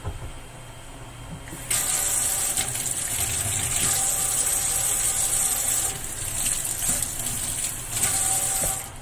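Water running hard from a tap into a sink, turned on abruptly about two seconds in and shut off just before the end.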